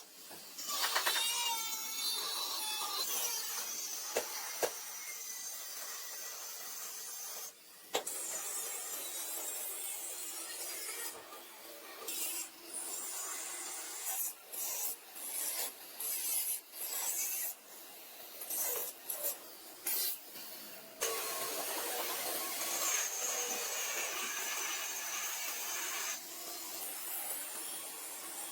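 Repeated rasping, rubbing strokes of hand work on metal bodywork, coming in short strokes with gaps in the middle stretch and steadier near the start and end.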